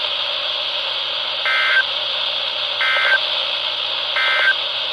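NOAA Weather Radio EAS end-of-message (SAME) data bursts: three short, identical warbling digital tones about 1.4 s apart over steady radio hiss, marking the end of the alert broadcast.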